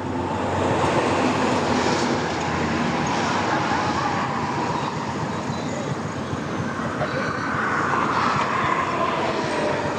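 Heavy engine noise, loud and steady, with a faint whine that slides slowly down in pitch.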